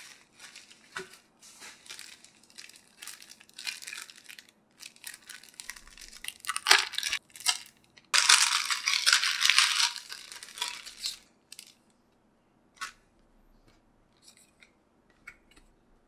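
Bubble wrap and plastic packaging crinkling as they are handled, then a clear plastic sleeve's adhesive flap being peeled open, a loud steady tearing rustle of about three seconds around the middle. After it, a few soft taps and clicks as cards are handled.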